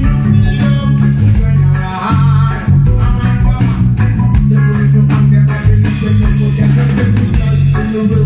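Live reggae band playing: drum kit, a heavy bass line and electric guitar, with a man singing into the microphone.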